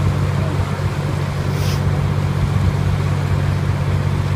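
Tow truck's engine running steadily with a low, even hum, powering the winch that is dragging a submerged car out of the river.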